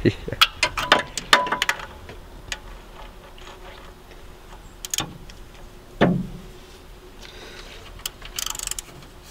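Ratchet wrench clicking and metal hand tools clinking against engine parts as a bolt is worked. A quick run of clicks in the first two seconds, then a single knock about five and six seconds in, and a short rasp of ratcheting near the end.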